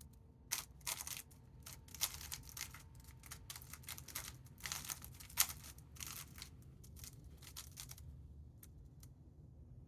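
Plastic speedcube being turned very fast in a timed solve: rapid, irregular clicking and clacking of its layers for about seven and a half seconds, stopping suddenly, then two light clicks.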